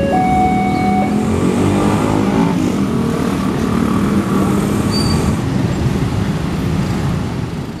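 Level-crossing warning alarm sounding its two alternating tones, which stop about a second in, followed by loud, continuous vehicle noise with shifting engine pitches that runs until the sound cuts off at the very end.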